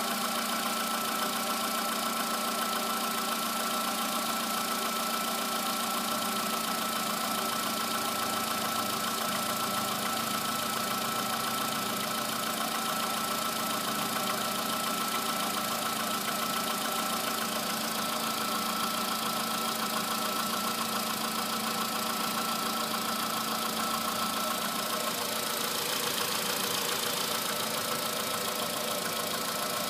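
Volkswagen Polo sedan petrol engine idling steadily on a cold morning start, with the engine knock that persists about 8,500 km after the pistons were replaced with modified ones.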